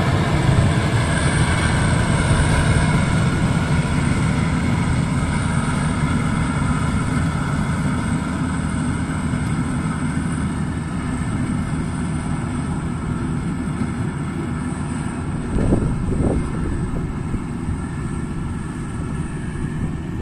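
Maxxi Bimo Evo Xtreme rice combine harvester running steadily as it harvests through the mud, growing slowly fainter as it moves away. Two brief thumps come about three-quarters of the way through.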